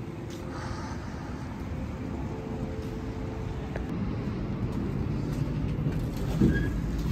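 Steady low rumble of a car idling close by, with traffic behind it. A short sound near the end as a glass entrance door is pulled open.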